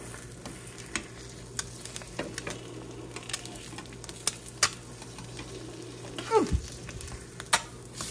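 An egg sizzling and crackling in butter in a small nonstick frying pan, with a metal spatula scraping and prodding under it as it is worked loose and flipped.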